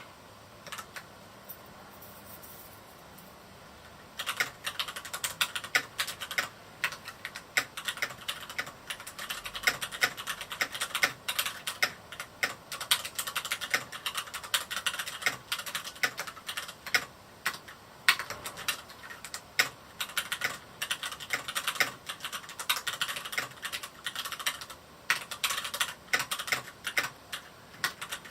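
Typing on a Varmilo Miya68 mechanical keyboard with linear Cherry MX Red switches: a pause of about three seconds near the start, then quick, uneven keystrokes.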